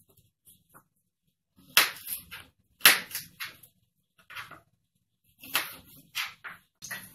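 Kitchen knife chopping carrot on a plastic cutting board: sharp knocks in small clusters, with short quiet gaps between.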